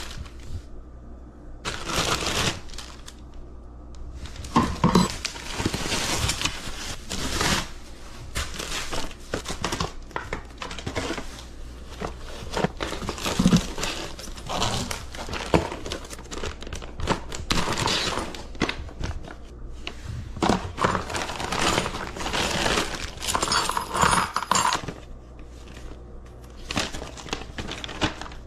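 Plastic packaging crinkling and rustling in irregular bursts as it is handled, with a few knocks of parts among it.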